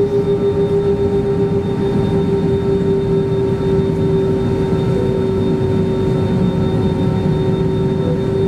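Cabin noise of an Airbus A320 taxiing: its jet engines running with a steady droning tone over a low rumble.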